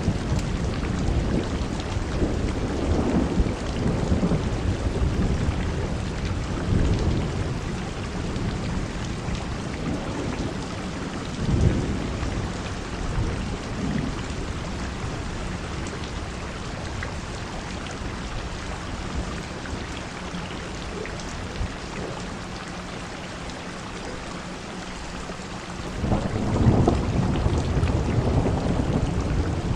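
Heavy storm rain pouring down with gusting wind, broken by low rumbling swells that rise and fall every few seconds. A louder surge comes near the end.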